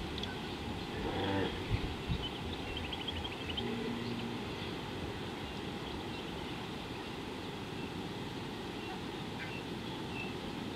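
Steady outdoor ambience with a low rumble. A few dull knocks come about a second in, and a short run of faint high bird chirps about three seconds in.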